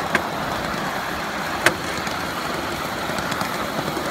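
Ride-on cars of a miniature railway rolling along the track at a steady pace: an even rumble and rattle of wheels on rail, with two sharp clicks, one just after the start and a louder one a little under two seconds in.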